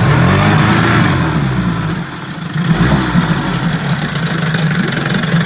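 1955 Evinrude Fastwin 15 hp two-cylinder two-stroke outboard motor starting from cold on the choke and running, its revs rising and falling twice before it settles into a steady run.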